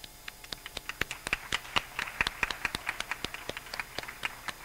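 Audience applauding: a small crowd's separate hand claps that swell during the first second or so, then thin out and fade near the end.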